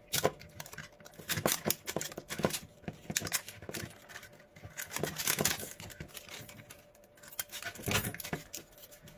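Irregular sharp clicks and crackling of plastic as a small three-cell lithium battery pack is handled and stripped of its wrapping by hand.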